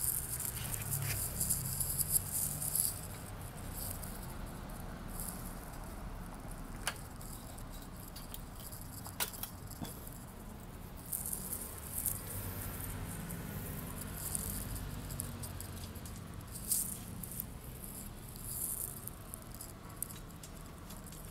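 Intermittent light rattling of metal parts with a few sharp clicks, as a motorcycle radiator guard and its bolts are handled and fitted by hand. The rattling is busiest in the first few seconds and again in the second half.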